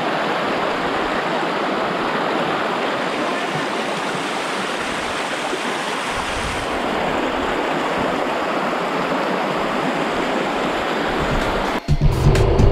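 Flowing river water rushing steadily. Near the end it cuts off suddenly to a louder low rumble with a few sharp clicks.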